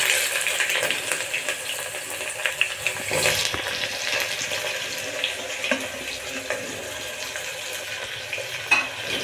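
Freshly added sliced onions sizzling in hot oil in an open aluminium pressure cooker: a steady hiss full of small crackles and pops, with one sharper crack near the end.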